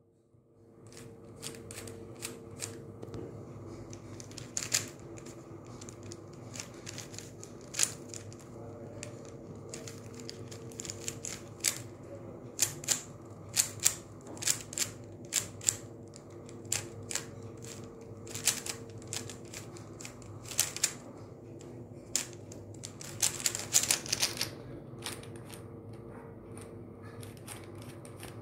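3x3 Rubik's cube being turned by hand: irregular clicking and clacking of its plastic layers as they rotate, with a quick flurry of turns late on, over a steady low hum.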